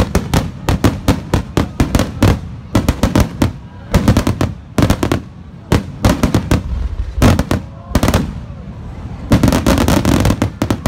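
Rapid barrage of aerial firework shell bursts in a display finale: many sharp bangs in quick clusters, with a short lull about eight seconds in, then a dense volley near the end.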